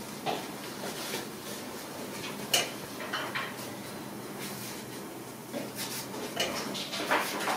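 A cloth being rubbed over the glass door of a stove in short wiping strokes, with small scrapes and knocks and one sharp click about two and a half seconds in.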